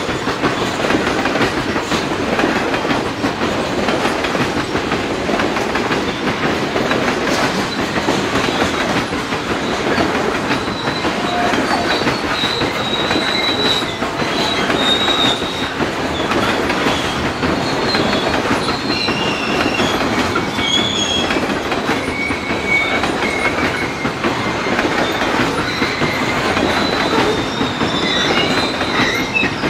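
Loaded coal cars of a freight train rumbling steadily past on the rails, with thin, high-pitched wheel squeals that come and go from about twelve seconds in.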